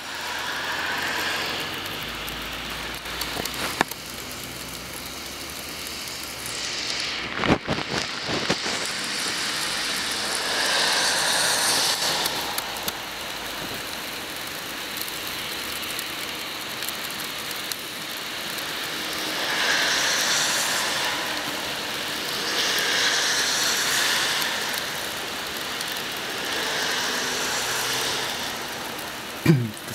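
Steady outdoor rush of traffic on wet, slushy roads, with cars passing several times, each swelling and fading over a few seconds. A few brief knocks come a few seconds in.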